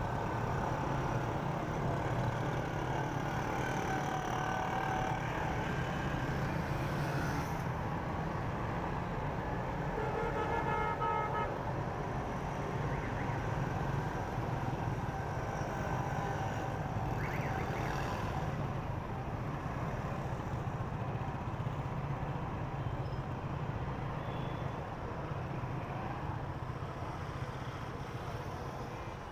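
Motorcycle engine running steadily while riding through busy traffic, with the noise of surrounding traffic; a vehicle horn sounds once for about a second and a half, about a third of the way in.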